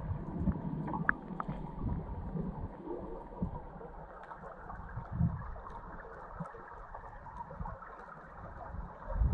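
Underwater ambience: a muffled, steady wash of water noise with low rumbling, a few soft thumps and faint scattered ticks.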